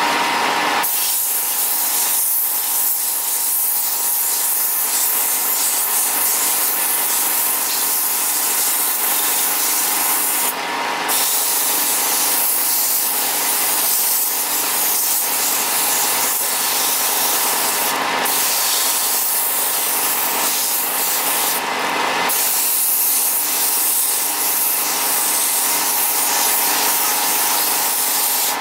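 Sandpaper held by hand against a workpiece spinning on a wood lathe: a steady hiss of abrasive on wood over a faint steady tone from the running lathe. The hiss breaks off briefly two or three times.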